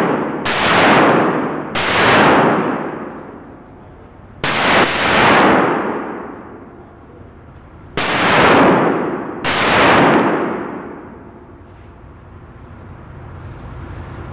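Five shots from a long gun, fired unevenly about one to three and a half seconds apart. Each has a long echoing decay off the walls and ceiling of an indoor range.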